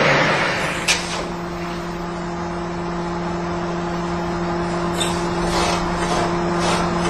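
Aircraft wheel brake burning on a brake dynamometer after a high-energy stop test: a steady machine hum with a higher tone above it over a noisy hiss, a sharp click about a second in, and a few faint crackles near the end.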